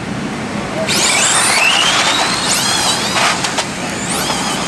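RC drag cars launching side by side, their electric motors whining high and rising steeply in pitch as they accelerate down the strip, with more rising whines as they run.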